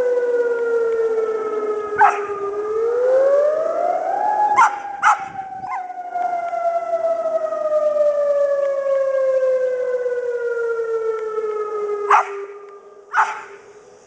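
Civil defence siren wailing on its monthly test: its pitch falls, rises steeply, then slides slowly down and fades near the end. A Pembroke Welsh Corgi gives six short, sharp barks over it.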